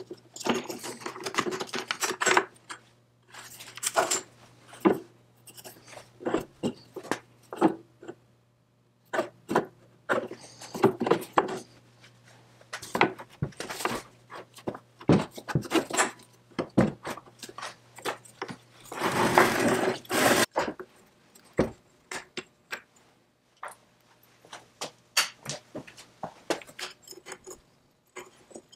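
Metal parts of a 1954 McCulloch 99 chainsaw's throttle trigger and handlebar being handled and worked loose by hand: irregular clicks, clinks and light knocks, with one longer scraping rub about two-thirds of the way through.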